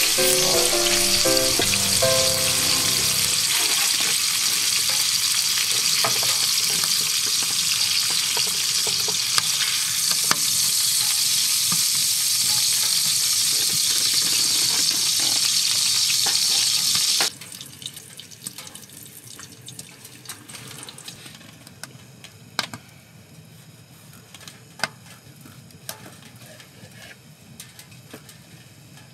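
Thick steak and its fat sizzling hard in a frying pan, a loud steady sizzle that stops abruptly about seventeen seconds in. The rest is much quieter, with a few faint clicks and taps.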